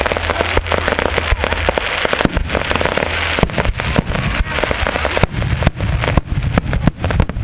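Fireworks going off: a dense, rapid run of sharp cracks and pops, several a second, over a continuous hiss.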